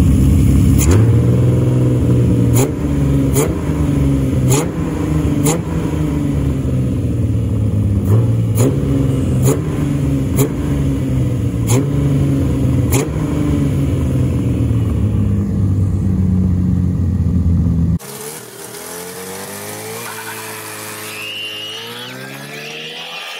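V6 engine with six individual throttle bodies and open velocity stacks, running and revving, with a dozen sharp cracks through it. About three-quarters of the way in, a sudden cut brings a quieter car engine that rises in pitch twice, as it pulls through the gears, with a child's high shriek near the end.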